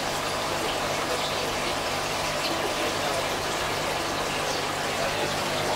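Aquarium aeration and filtration running: steady bubbling and running water, with a low, steady pump hum underneath.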